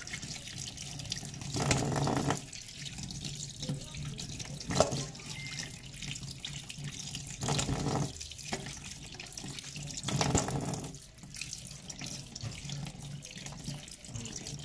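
Tap water running steadily into a stainless-steel sink while small crabs are rinsed one by one under the stream; the splashing swells louder several times as a crab is worked under the water.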